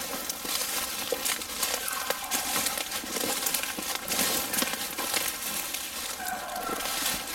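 Footsteps crunching and rustling through deep dry leaf litter at a brisk walk, with twigs and brush snapping and scraping along.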